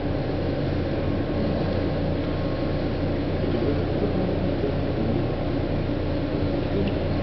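A steady mechanical hum with an even rushing noise over it, holding level without a break.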